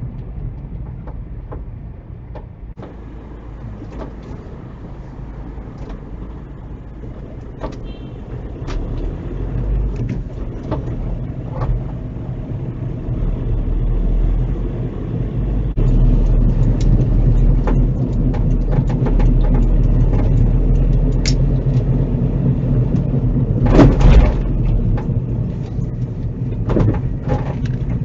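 Car cabin sound picked up by a dash cam while driving: a steady low engine and road rumble that grows louder in the second half, with scattered clicks and knocks and one louder thump a few seconds before the end.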